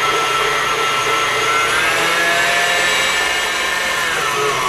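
KitchenAid stand mixer running at speed with its wire whisk, whipping thick non-dairy whipped topping in the steel bowl: a steady motor whine that rises a little in pitch about two seconds in and falls away near the end as the mixer slows.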